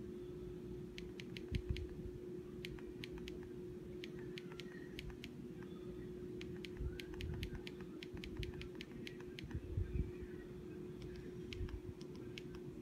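Quick irregular runs of light plastic clicks from TV remote buttons being pressed, over a faint steady hum.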